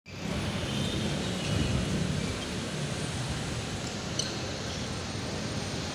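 Steady rumbling noise of an elevated light-rail station platform, with one brief high clink about four seconds in.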